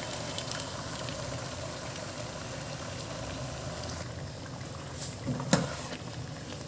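Chicken pieces bubbling and sizzling in hot oil in a frying pan while thick tikka masala paste is poured in. A wooden spatula knocks and scrapes the pan a few times about five seconds in as stirring begins.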